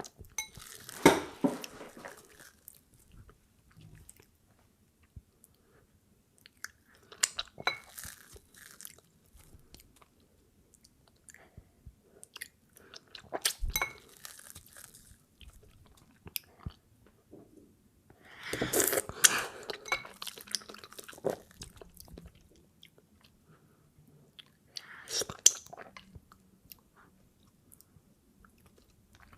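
Close-miked eating sounds, wet chewing, biting and smacking of a mouthful of fufu, coming in five bursts about every six seconds with quiet stretches between.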